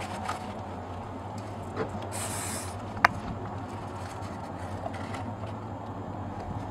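A short burst of aerosol spray, a hiss of about half a second about two seconds in, of the kind made by CA glue accelerator sprayed onto a foam joint, followed by one sharp click. A steady low hum runs underneath.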